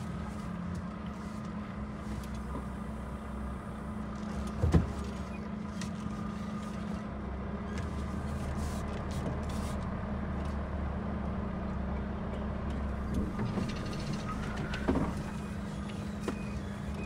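Volvo FH timber truck's diesel engine running steadily under way, a low drone with a held hum. A sharp knock about five seconds in, the loudest sound, and a smaller one near fifteen seconds.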